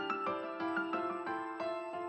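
Background music: a soft keyboard melody with notes changing several times a second.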